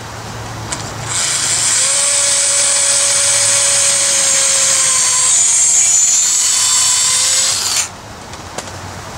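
Handheld electric drill boring holes into the old wooden handle stub lodged in a sledgehammer head's eye, to drill the old handle out. It runs steadily from about a second in for nearly seven seconds, then stops suddenly.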